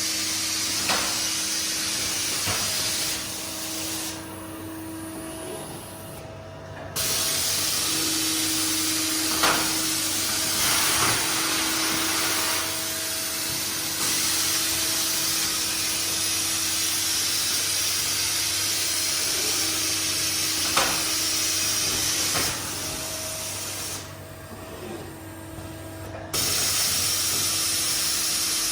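Uniloy UMS 16D blow moulding machine working a dry cycle, with no plastic: a steady machine hum with a loud hiss. The hiss drops away for a few seconds twice, about 3 s in and again about 23 s in, and there are a few sharp knocks from the moving parts during the cycle.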